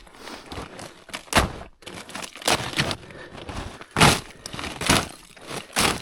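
Footsteps crunching through deep snow on a steep climb, about one step a second.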